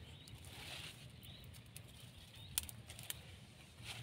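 Faint rustling and a few sharp light clicks as a cloth bag is handled and laid out on the grass, with faint short chirps in the background.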